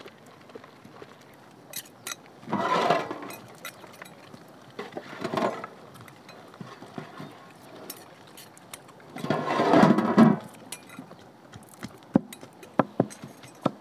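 Cleaver knocking onto a wooden tree-stump chopping block as raw chicken is cut into pieces, a few sharp knocks in the last two seconds, with scattered lighter clicks before. Three louder noisy swells, about 3, 5 and 10 seconds in, rise over the background; their source is unclear.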